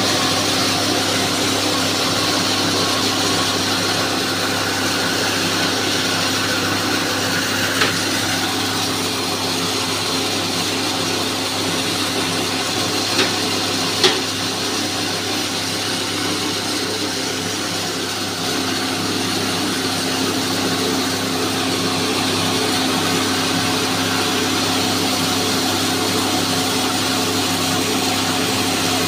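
Electric-motor-driven grain mill running steadily with a constant hum and whir as grain is fed into its hopper, with a few short sharp knocks about halfway through.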